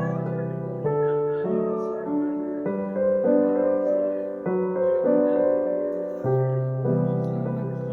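Background piano music: a gentle melody played as chords and sustained notes.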